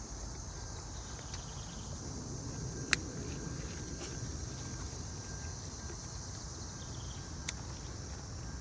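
Outdoor garden ambience: a steady high-pitched insect drone over a low rumbling noise, broken by a sharp click about three seconds in and a fainter one near the end.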